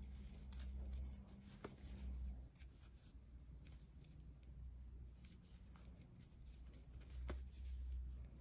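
Faint rustling and crackling of paper yarn being pulled through stitches with a crochet hook, with a few sharp little clicks, over a low hum that swells and fades.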